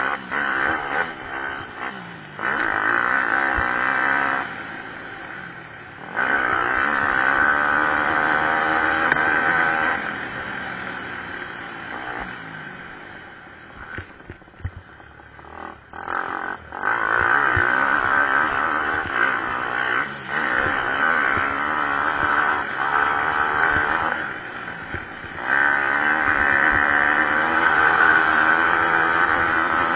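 Pit bike engines racing on a motocross track, revving up and down as the bikes pass, loud in waves with a quieter spell about halfway through.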